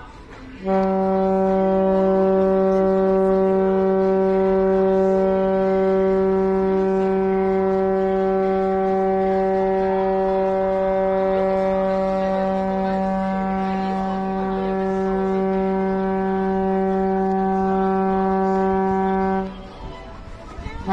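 Horn of the river motor ship Sergei Kuchkin sounding one long blast of nearly twenty seconds on a single steady note, starting under a second in and cutting off shortly before the end.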